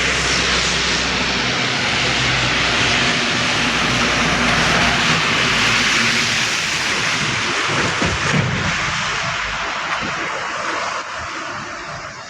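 Loud rushing roar of a motor vehicle on the move, with a low engine hum beneath it in the first half, fading away near the end.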